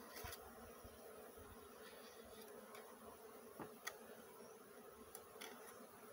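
Faint, steady buzzing of a honeybee colony, with a few faint clicks.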